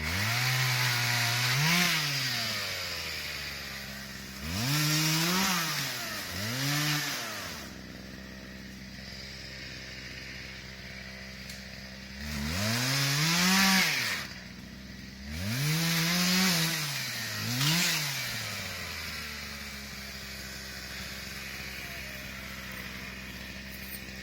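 Chainsaw idling and revved up six times, in two groups of three, its pitch rising and falling back to idle each time.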